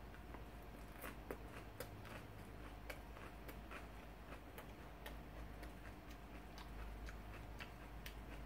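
Raw lettuce being chewed: faint, irregular crisp crunches, a few per second, over a low steady hum.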